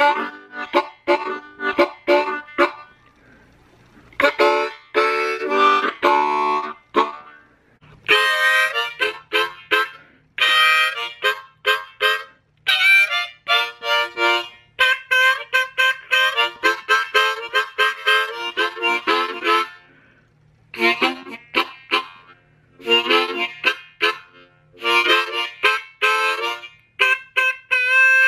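Seydel Big Six, a small six-hole diatonic blues harmonica, cupped in the hands and played in choppy bluesy phrases of short, quick notes, with a few brief pauses between phrases.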